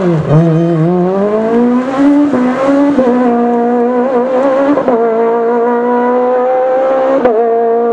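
Rally car engine revving hard: the pitch dips briefly as the throttle is lifted, climbs over the next two seconds, then holds high and steady, with two short dips where it changes gear.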